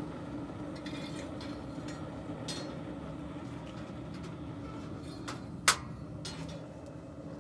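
A steady machine hum in a forge shop, with a few light clicks and one sharp metallic clank near the end.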